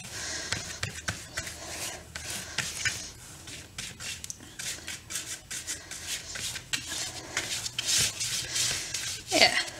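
Paintbrush scrubbing thick acrylic paint onto corrugated cardboard in irregular back-and-forth strokes, a rubbing, rasping sound.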